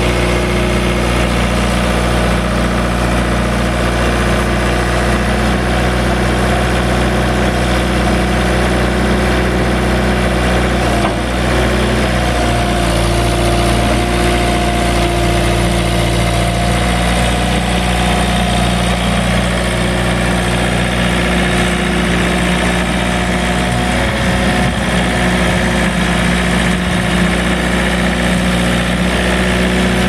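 John Deere 110 backhoe loader's Yanmar four-cylinder diesel engine running steadily at idle. A higher steady tone joins it for several seconds about a third of the way through.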